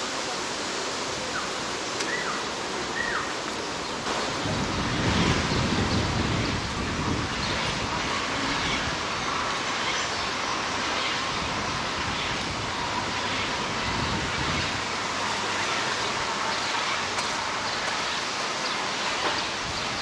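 Steady outdoor rushing noise with no single clear source. Two short chirps come about two and three seconds in. A low rumble swells about four seconds in and fades out after about ten seconds.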